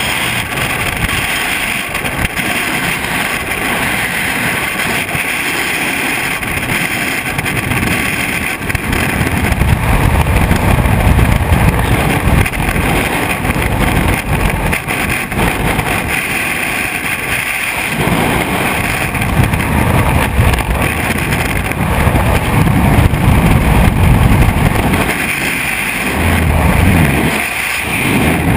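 Freefall wind rushing over a skydiver's camera microphone: a steady buffeting noise that grows louder about a third of the way in, with two short dips, one past the middle and one near the end.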